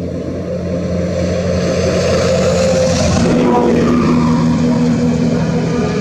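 A motor engine running, getting louder through the first half, with its pitch shifting about three seconds in.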